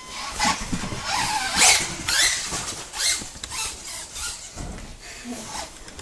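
Electric RC truck (Helion Animus TR) being driven: its motor and drivetrain whine in short, uneven bursts as the throttle is blipped, some rising in pitch.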